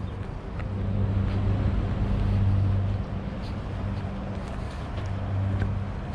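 A low, steady motor hum that swells and fades every few seconds, over outdoor background noise with a few faint ticks.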